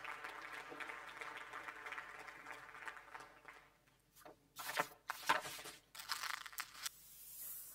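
Theatre audience applauding, a dense crackling clapping that fades out after three or four seconds. It is followed by a few sudden loud rustling bursts of handling noise.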